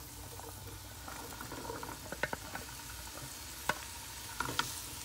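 Sliced onion, celery and red bell pepper sizzling in hot oil in a frying pan as they are stirred, with a steady hiss and a few sharp taps and scrapes of the spatula against the pan about two seconds in and again near the end.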